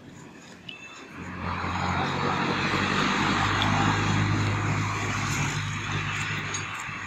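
A motor vehicle's engine running close by, coming up about a second in and fading out near the end, over a steady hiss.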